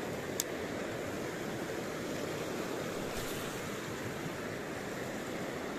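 Steady rush of river water flowing over rocks, with one sharp click about half a second in.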